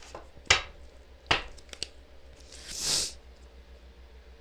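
Tarot cards being handled on a table: two sharp taps about half a second and a second apart, then a soft swish of a card sliding near the end.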